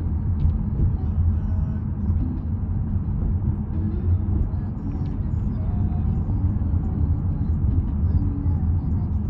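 Steady low road rumble and wind noise inside a moving car with a side window rolled down.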